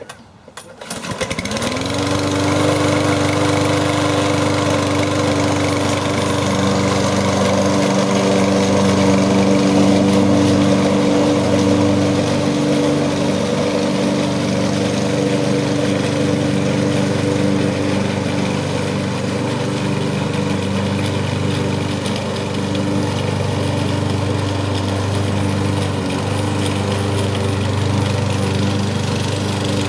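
Self-propelled walk-behind gas lawn mower engine starting about a second in, its pitch rising quickly as it comes up to speed, then running steadily.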